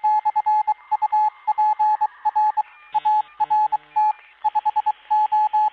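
Morse code beeps: a single steady tone keyed on and off in short and long pulses, with a few lower-pitched multi-tone bleeps about three seconds in.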